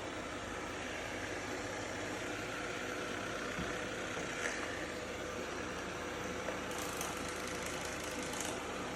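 Roborock robot vacuum running: a steady fan hiss with a faint motor hum, and a couple of small knocks around four seconds in.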